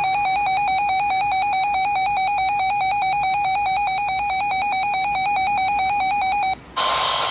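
Weather radio's built-in alert alarm: a loud, steady, rapidly pulsing electronic tone that cuts off after about six and a half seconds. The radio then opens to the broadcast audio: static hiss with the steady NOAA Weather Radio warning alarm tone beginning near the end.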